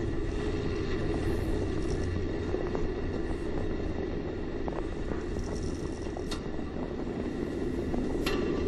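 Wind rushing past a Space Shuttle solid rocket booster as it falls under its three main parachutes, heard on the booster's own microphone as a steady rumbling rush. A few sharp clicks and rattles from the booster's hardware stand out, the loudest about six and eight seconds in.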